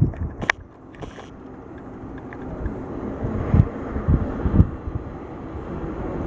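Distant jet airliner engine noise that grows gradually louder, with wind buffeting the microphone in low gusts.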